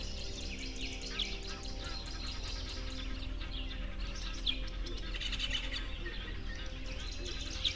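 Many small songbirds chirping and singing, with quick high chirps and trills overlapping one another, over soft steady background music.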